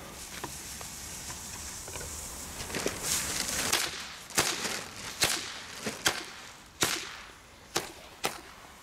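Tricktrack firework going off on asphalt: a hiss for about three seconds, then about eight sharp bangs spaced roughly a second apart, each with a flash and a puff of white smoke.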